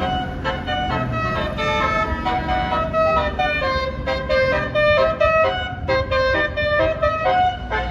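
Bus telolet horn, a Basuri multi-tone horn, playing a rapid tune of short notes that change pitch several times a second, over a low engine rumble.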